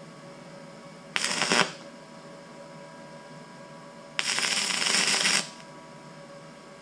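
Stick-welding arc from a 3/32 E6011 rod on a Weldpro 155 GD, crackling in two short bursts: about half a second just after the start, then just over a second near the middle. A faint steady hum sits under both.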